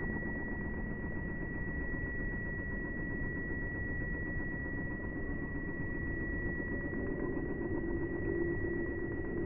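A small motor running steadily, with a thin, constant high whine over a low hum.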